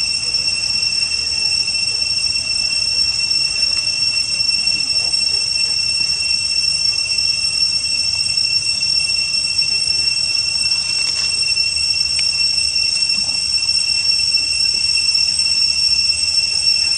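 Steady, shrill drone of insects, holding two high pitches throughout without a break.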